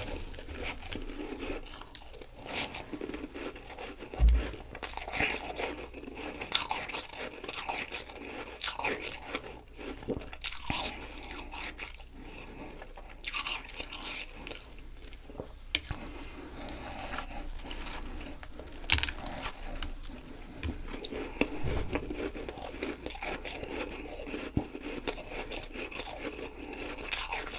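Close-up chewing of powdery frost ice: irregular crisp crunches and crackles with softer wet chewing between them. Two dull low thumps stand out, one about four seconds in and one near 22 seconds.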